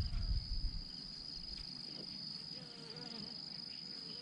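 Insects droning in one steady, unbroken high-pitched tone, with a few low thumps on the microphone in the first second.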